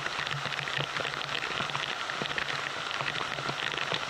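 Torrential artificial downpour of about 300 mm an hour from a rainfall-simulation rig, pouring steadily onto standing floodwater as a dense patter of drops, with a steady low hum underneath.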